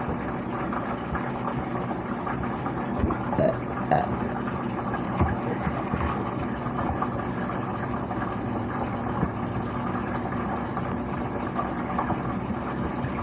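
A steady mechanical hum, like a running motor or engine, holding one pitch throughout, with a few short brief sounds over it between about three and six seconds in.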